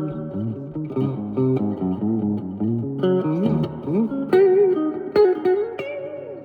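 Fernandes TEJ-70 electric guitar played in a single-note lead line, with several notes bent upward in pitch and a wavering vibrato on a held note about four seconds in.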